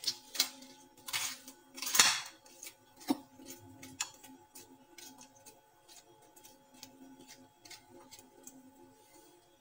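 A kitchen utensil scraping the seeds out of a cut muskmelon, with a string of short clicks and taps against a dish, loudest in the first two seconds and then lighter ticks.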